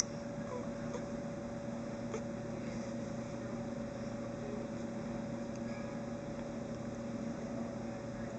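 A steady, even hum, like a running appliance or fan, over faint background hiss, with a few very faint clicks.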